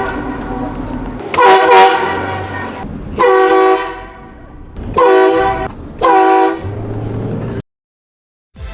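Replica train horn, air-powered from a 200 psi onboard compressor, blasting four times: first a long blast of about a second and a half, then three shorter ones, each a loud chord of several notes. Between blasts the car's engine and road noise run steadily.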